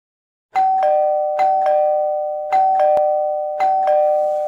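Two-tone doorbell chime rung four times in quick succession, each ding-dong a higher note followed by a lower one, the tones ringing on and fading away after the last.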